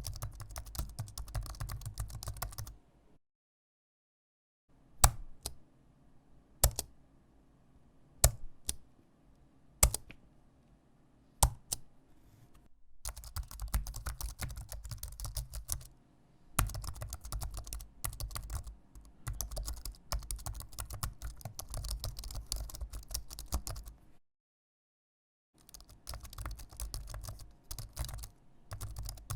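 Typing on a mechanical keyboard, with rapid runs of key clicks broken by two short pauses. In the middle there is a slower stretch of single, louder keystrokes about a second or more apart.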